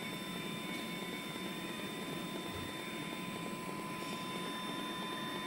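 Swagelok M200 orbital TIG welding system mid-weld, on the last level of the weld program with the arc burning inside the enclosed head: a steady, even hum and hiss with two constant thin whines.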